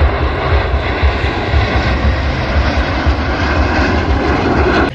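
A fixed-wing aircraft's engines running loud as it flies past: a steady rushing noise with a deep rumble underneath. It cuts off suddenly near the end.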